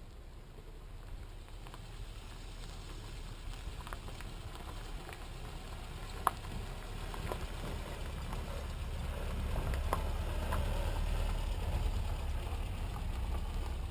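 Small pickup truck driving up a dirt road, its engine rumble and tyre noise growing louder as it approaches. Gravel crunches and small stones click under the tyres, with one sharp click about halfway through.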